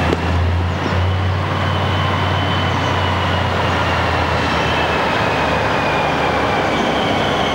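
Armoured military vehicle running steadily: a low engine drone with a high whine that slowly falls in pitch.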